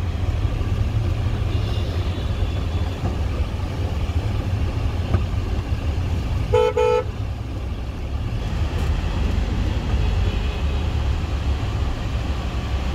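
Steady low rumble of a car's engine and road noise, heard inside the cabin in heavy traffic. A vehicle horn gives one short toot about six and a half seconds in.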